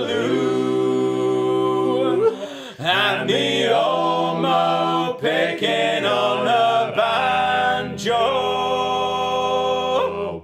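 Male a cappella vocal group singing a sea shanty in close harmony, with no instruments. The last phrase ends on a long held chord that cuts off suddenly.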